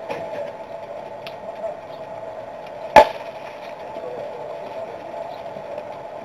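A single sharp crack of a bat hitting a baseball about three seconds in, over a steady faint background drone.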